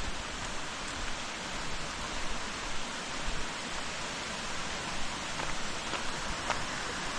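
Steady rushing of Purakaunui Falls' water, an even hiss with no breaks.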